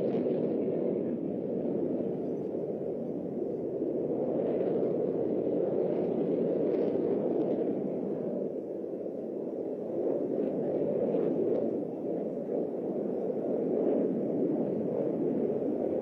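Jet noise from a JF-17 Thunder fighter's single Klimov RD-93 turbofan during a display flight: a steady low rush that swells and eases slightly.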